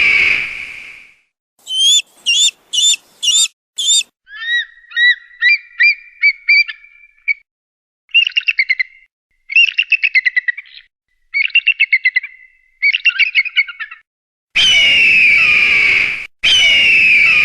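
Eagle calls: a run of short rising whistled chirps, then fast chattering trills, then two long, loud, harsh screams near the end.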